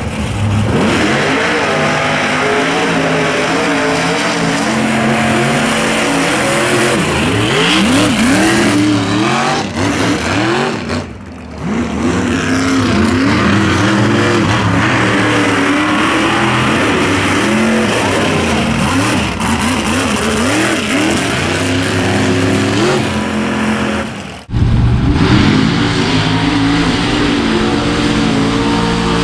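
Mega truck's engine revving hard, its pitch sweeping up and down again and again under heavy throttle as the truck tears through dirt. The sound drops out briefly about a third of the way in and breaks off abruptly near the end before picking up again.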